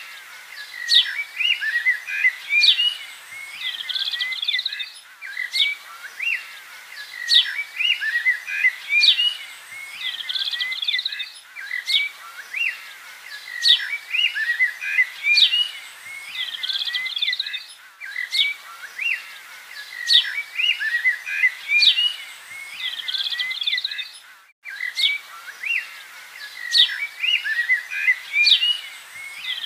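A busy chorus of small birds chirping and twittering, high-pitched. The same stretch of birdsong repeats about every six seconds, with a brief dip between repeats.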